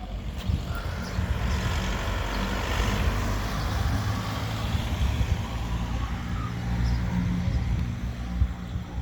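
A motor vehicle's engine running with a steady low hum. A rush of noise swells about three seconds in and eases off later.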